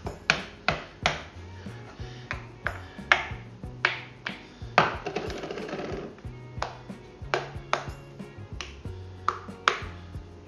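A fork pricking pastry cases in metal pie tins, its tines clicking against the tins in sharp taps about two a second, with a short scrape about five seconds in. Background music with a steady bass line plays underneath.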